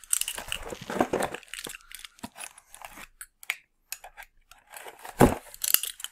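Packaging being handled and torn open by hand: irregular rustling, crinkling and tearing, with one sharper knock about five seconds in.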